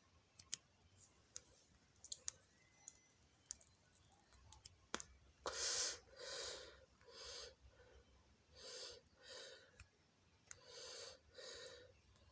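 Faint sharp clicks, a few at a time, then a run of short breathy hisses, mostly in pairs, close to the microphone.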